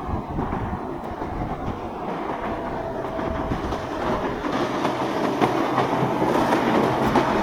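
A boat engine runs under a rough rumble of wind and water, with a low steady hum underneath, and the sound grows louder toward the end.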